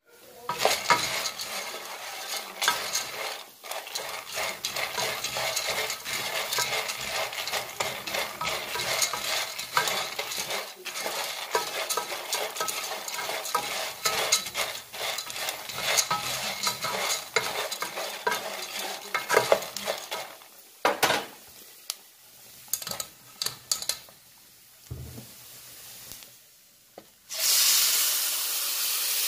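Dry shell pasta being stirred in hot oil in a metal pot with a plastic spoon: a busy rattle and scrape of the shells against the pot with a light sizzle, thinning to scattered clicks after about twenty seconds. Near the end, blended tomato sauce poured through a strainer into the hot pot sets off a sudden loud, steady sizzling hiss.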